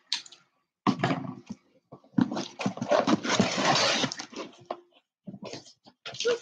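Paper packaging rustling and tearing as a USPS Priority Mail envelope is handled and opened: a few short rustles, then a longer, louder stretch of crinkling in the middle.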